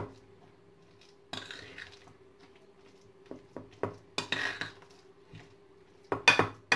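A metal spoon stirring thick oat and mashed-banana cookie dough in a glass bowl, scraping and clinking against the glass in irregular strokes, with a quick cluster of sharper clinks near the end.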